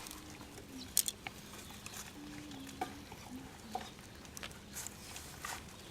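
Scattered light clicks, taps and rustling of something being opened and handled by hand.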